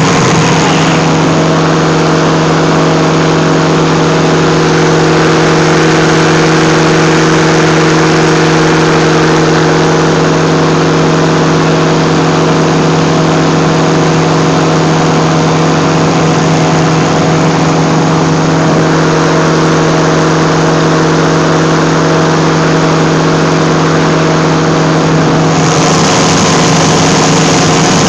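Powered parachute's engine and propeller running at a steady, unchanging cruise pitch, heard loud from on board, with rushing wind noise over it.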